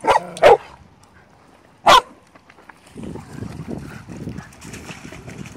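Dogs barking in play: two sharp barks right at the start and one more about two seconds in. From about three seconds on, a low, uneven rustling noise.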